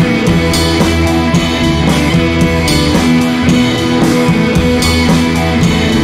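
Background rock music with guitar and drums.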